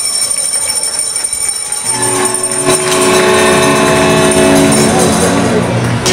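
Arena goal horn blaring a steady, multi-note chord, starting about two seconds in over fading crowd noise.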